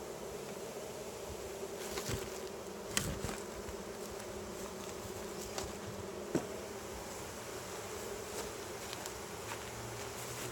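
Honey bees buzzing steadily around an opened hive during an inspection. A few sharp knocks come about two, three and six seconds in.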